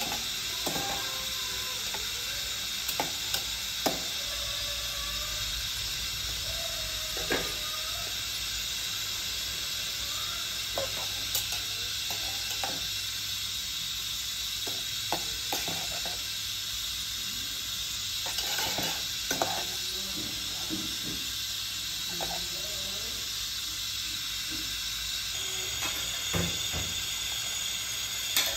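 A pot of water boiling with a steady hiss, with metal tongs clicking and knocking against the pot now and then as napa cabbage and greens are stirred in it.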